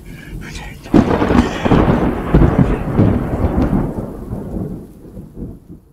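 Rough rumbling and rustling of the camera's microphone being handled and rubbed against fabric. It starts suddenly about a second in and fades out.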